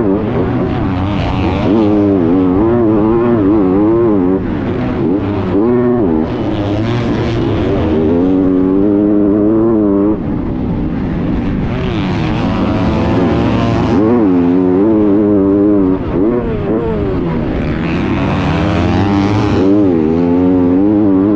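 Onboard sound of a 250cc motocross bike's engine at full throttle under load in deep sand, revving up and dropping back again and again with gear changes and throttle. The sound breaks off abruptly about ten seconds in and picks up again.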